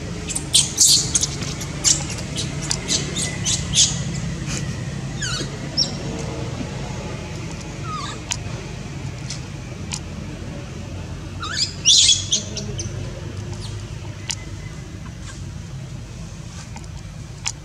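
High-pitched squeaks and chirps from a baby monkey, in clusters during the first few seconds and again around twelve seconds in, over a steady low hum.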